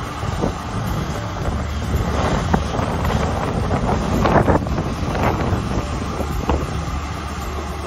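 Wind buffeting the microphone in gusts, strongest about halfway through, over the steady low rumble of a combine harvester running while it unloads grain into a trailer.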